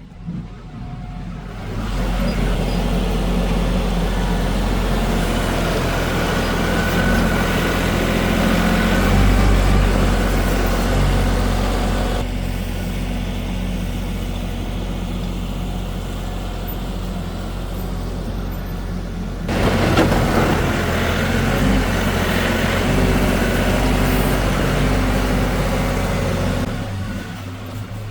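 Kioti NS6010 compact tractor's diesel engine running steadily while it works the loader. The sound shifts abruptly a few times, with a brief louder rush of noise about two-thirds of the way in.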